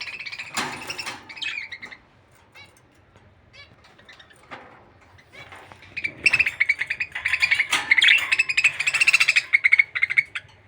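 Small pet birds chirping: a few chirps at first, then after a lull a loud, dense run of rapid chirping about six seconds in that lasts almost to the end.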